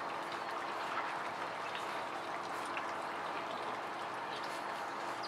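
A litter of Vizsla puppies lapping and smacking at wet puppy mush from a shared pan: a steady mass of many small wet clicks and slurps.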